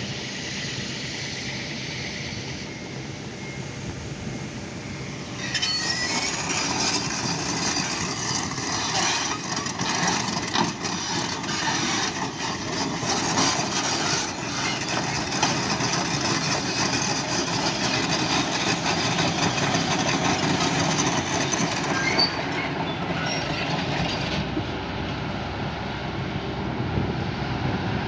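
Heavy diesel engines of a dump truck and a pushing excavator labouring on a steep climb, with metal clanking and rattling. The noise gets louder and rougher about five seconds in and eases slightly near the end.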